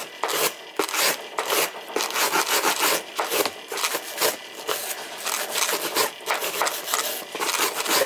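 Wire brush scrubbing corrosion and debris off a copper water-line fitting on top of a water heater, in quick, irregular strokes, several a second.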